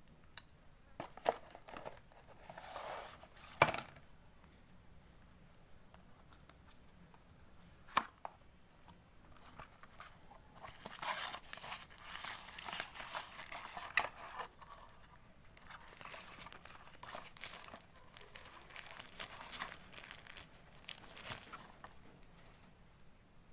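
Phone box packaging being opened by hand: wrapping crinkling and tearing in stretches, mostly through the second half, with a few sharp clicks or knocks, the loudest a little under four seconds in.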